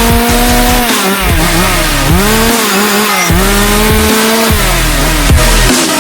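Two-stroke gas chainsaw running near full throttle, its engine speed dipping briefly and recovering about four times, then falling away near the end.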